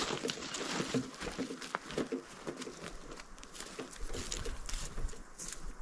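Footsteps and the rustle of vegetation as someone walks through forest undergrowth, irregular crunches and swishes, with a low rumble joining from about four seconds in.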